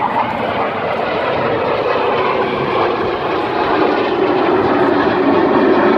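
A formation of BAE Hawk T1 jet trainers flying past, their Adour turbofans making a steady jet rush that grows slightly louder, with a tone that slowly falls in pitch.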